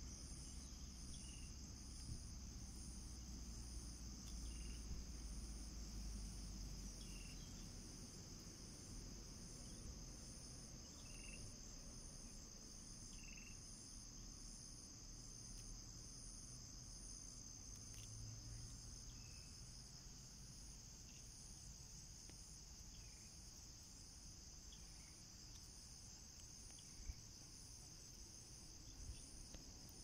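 Faint insect chorus: a steady high buzzing drone with a separate pulsing trill above it, repeating about once a second. A few short, faint chirps come through lower down.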